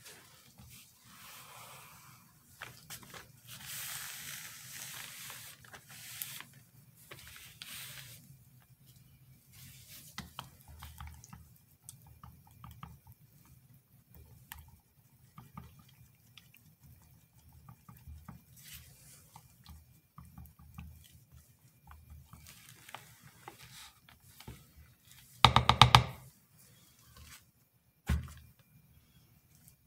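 Hand-work sounds of soap making: a rubbing, rustling hiss for the first several seconds as gloved hands are wiped with a cloth, then quiet stirring of soap batter in a plastic cup. About 25 seconds in comes a loud, short rattling clatter, and near the end a single knock, as plastic containers are handled on the table.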